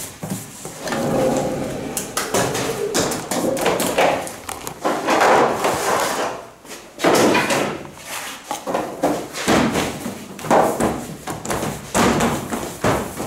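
Handling noise at a bakery worktable: a run of irregular knocks, taps and thuds as pan de muerto dough pieces are divided and shaped on a steel table and metal baking sheets are moved about.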